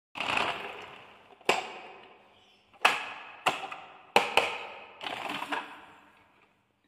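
Sharp knocks and clatters of a hollow plastic toy dump truck being handled, about six strikes roughly a second apart, each ringing out briefly.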